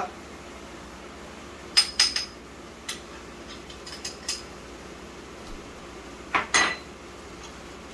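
A metal spoon clinking against cookware while two tablespoons of masala are spooned into the pot: a few sharp, ringing clinks in small clusters, about two seconds in, around four seconds, and a louder pair near the end.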